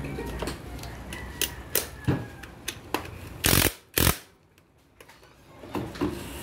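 Socket ratchet on a long extension working a bolt on a car's engine mount: scattered sharp metal clicks, with two louder, longer clunks about three and a half and four seconds in.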